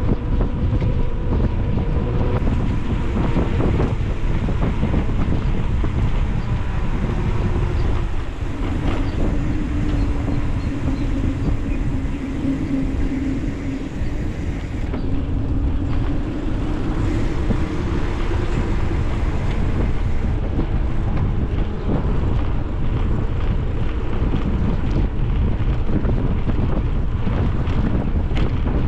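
Steady wind rush buffeting the microphone of a camera carried on a moving bicycle, with a faint low hum through the middle stretch.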